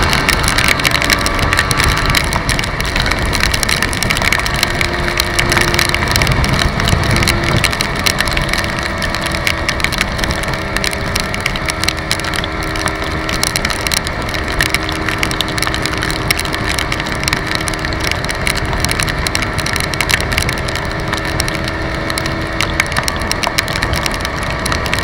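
Small Yamaha motorcycle riding at highway speed: a steady engine hum under loud wind rushing and crackling on the microphone.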